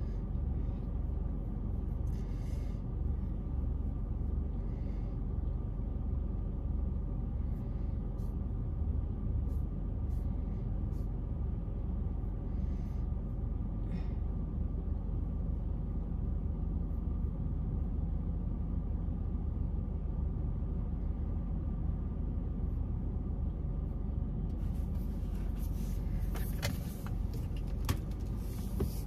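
Car engine idling, a steady low hum heard from inside the cabin. Near the end, as the car pulls forward, a hiss rises and a few clicks and rustles come in.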